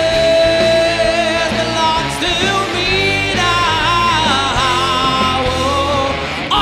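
Rock band music with singing: a long held sung note in the first second, then a wavering sung melody over the full band.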